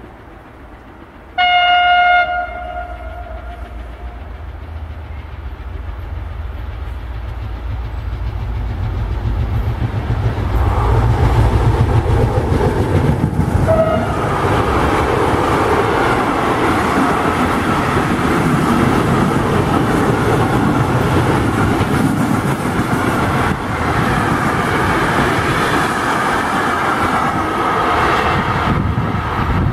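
A freight train sounds its horn once near the start, a single note about a second long, then approaches and passes close by. The rumble builds over several seconds and turns into loud, steady wagon noise with a rhythmic clatter over the rail joints. A brief second horn blip comes about halfway through.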